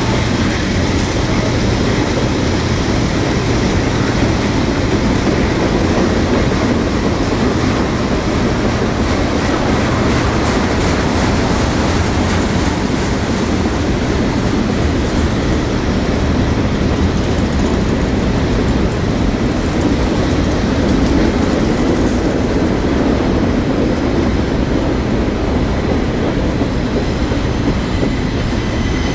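Freight train cars rolling past: covered hoppers, tank cars and boxcars, with a steady rumble of steel wheels on the rails and wheels clicking over the rail joints.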